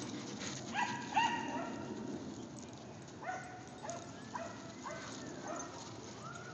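Dogs playing rough, giving short high yips and barks: a couple about a second in, then a run of them from about three seconds on.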